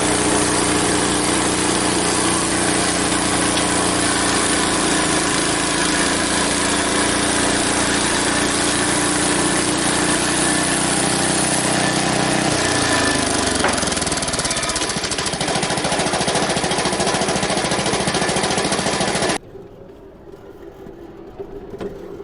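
Frontier OS23 portable band sawmill running, its gas engine driving the band blade through a log. About two-thirds through, the engine note drops, and with about three seconds left the sound cuts off suddenly.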